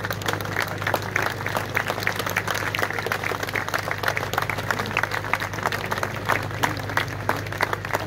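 Crowd applauding: many hands clapping in a dense, uneven patter, over a steady low hum.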